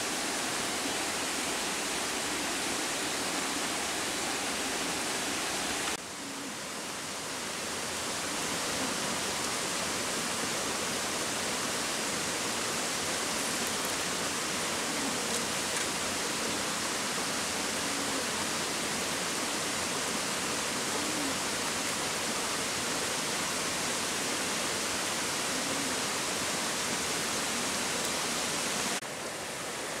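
Waterfall rushing in a steady, even hiss. The level dips suddenly about six seconds in and again near the end, then builds back up.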